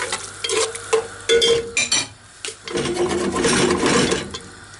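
Metal spoon stirring and scraping in a metal pot of wet seafood and vegetable sauce: several short strokes, then a longer stretch of stirring about three seconds in.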